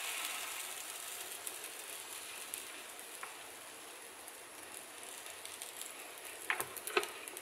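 Waffle batter sizzling on the hot plates of an open electric waffle maker, a steady hiss that slowly fades. A couple of light clicks near the end.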